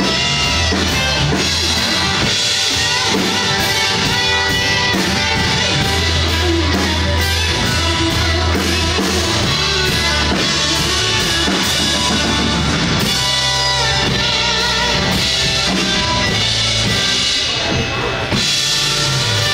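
Rock music with a drum kit keeping a steady beat, bass and guitar.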